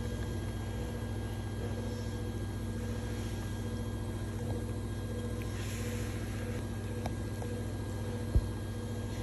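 Steady low machine-like hum with a few constant tones, broken by one sharp click about eight seconds in.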